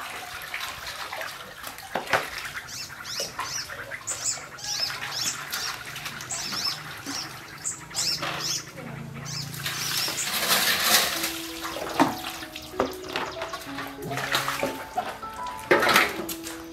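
Water sloshing and splashing in metal and plastic basins as chicken and baby corn are washed by hand, with birds chirping in the first half. Soft background music with held notes comes in about eleven seconds in, and water is poured into a metal basin near the end.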